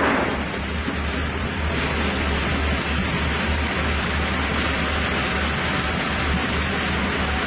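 Large chainsaw running steadily under load while milling a log, a continuous dense cutting noise over a low engine hum.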